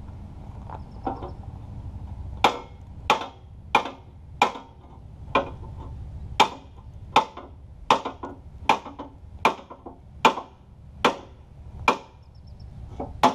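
A hand hammer strikes a steel frame in a steady series of about fourteen sharp blows, a little over one a second, each with a short metallic ring. The blows start a couple of seconds in.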